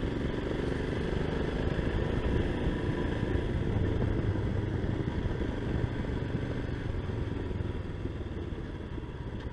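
Motorcycle engine running steadily at a cruise while being ridden, with wind and road noise rushing over the microphone.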